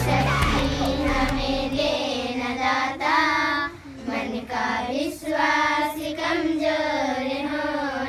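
A group of young girls singing a song together in unison, in long wavering notes with a short breath between phrases about four seconds in. Low backing music drops out about two seconds in, leaving the voices unaccompanied.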